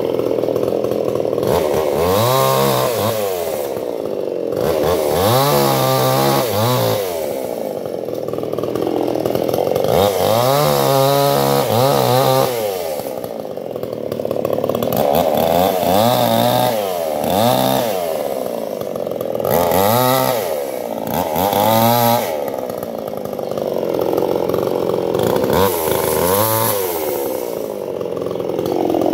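Chainsaw cutting guava wood, its engine revving up and falling back again and again, about every two to five seconds, as the chain bites into the wood.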